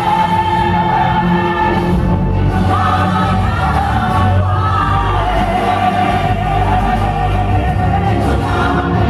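Stage musical music with a choir singing long held notes over a steady bass line.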